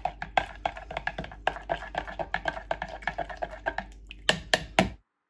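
A metal spoon clicking and rattling rapidly against the sides of a plastic measuring jug as liquid is stirred briskly, ending with three louder knocks.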